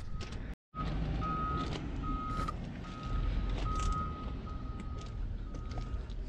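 A vehicle's backup alarm sounds repeated beeps on one high tone over a low rumble. The audio cuts out briefly about half a second in.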